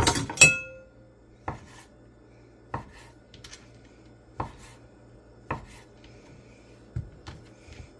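Chef's knife chopping through soft canned biscuit dough and knocking on a wooden cutting board: five separate strokes, about one every second or so. A sharp, ringing clink comes about half a second in.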